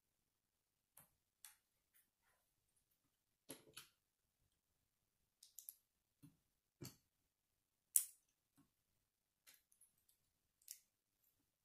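Small plastic Lego bricks clicking and tapping as they are handled and pressed together, a dozen or so faint, scattered clicks with silence between them. The sharpest click comes about eight seconds in.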